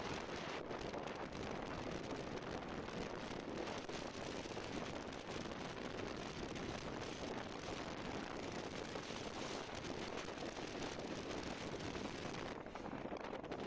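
Steady muffled rushing noise with a dense crackle: rain and wind on a phone microphone while riding a motorcycle in the rain.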